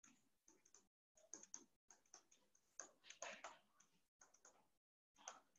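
Near silence with faint, scattered ticks and taps: a stylus tapping on a tablet screen while handwriting.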